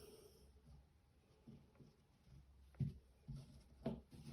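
A few faint, light knocks and clicks of small parts from a nail gun spring service kit being set down on a work surface, the loudest just under three seconds in, over quiet room hum.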